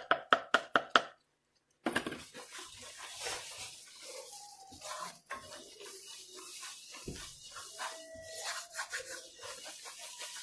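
Spatula scraping and stirring gram flour into hot sugar syrup in a metal kadai: a continuous, uneven rubbing scrape. It follows a quick run of sharp taps in the first second and a brief gap of silence.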